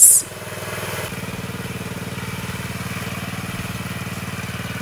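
Small gas engine of a walk-behind motorized dolly running steadily as it moves a wooden coop, picking up slightly about a second in.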